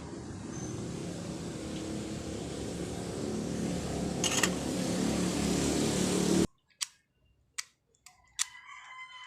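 A steady low rumble with a hum that cuts off abruptly about two-thirds of the way through. It is followed by a few clicks and, near the end, a rooster crowing in the distance.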